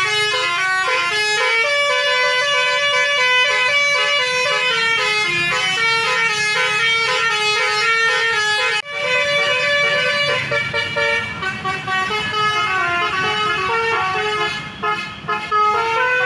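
Bus telolet basuri horn playing a melody of quick stepped notes, with a brief break about nine seconds in before the tune goes on.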